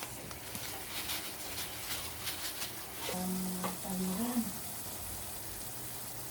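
Food sizzling and crackling as it fries in a pan, with some stirring. A brief hummed, voice-like sound of a few notes comes in about three seconds in.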